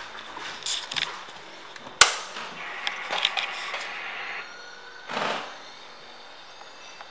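Handheld camera handling noise against a motorcycle's plastic bodywork: scattered clicks, rubbing and knocks, with one sharp knock about two seconds in and a short scraping rustle a few seconds later.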